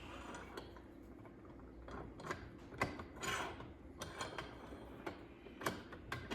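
Scattered light metal clinks and taps, with a short scrape about three seconds in: a metal damper shaft being fed through freshly drilled holes.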